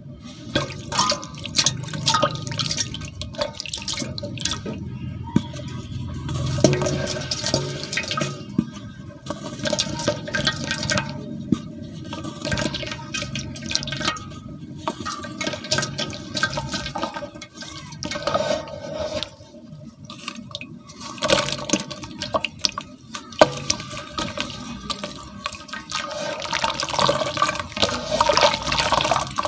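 Dried pure cement pieces being crumbled and squeezed by hand in water in a metal basin: irregular crackling and crunching mixed with splashing and sloshing water, getting busier near the end as the cement turns to wet mush.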